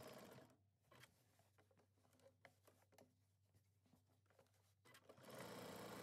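Near silence with a few faint clicks and ticks. A steady low hum fades out about half a second in and comes back near the end.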